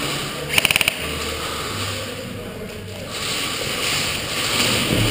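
A gun in an indoor skirmish game firing a quick full-auto burst of about half a dozen shots a little over half a second in, over a steady hiss.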